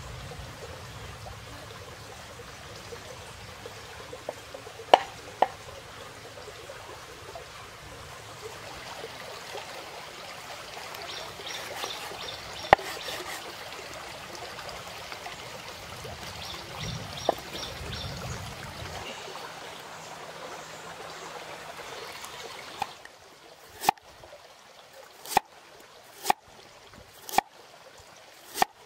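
Shallow stream water trickling, with a few scattered knife cuts on a wooden board. In the last several seconds a broad-bladed knife chops through a carrot onto a wooden chopping board, sharp knocks about once a second.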